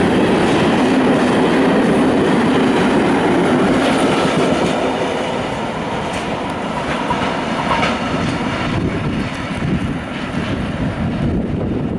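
Freight train of loaded open coal wagons passing at speed, wheels clattering over the rail joints in a loud, continuous rumble that eases off over the second half as the train draws away.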